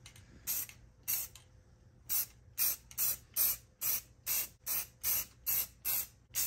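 Aerosol clear coat spray can hissing in short bursts. Two single bursts come in the first second and a half, then a steady run of quick bursts at about two a second.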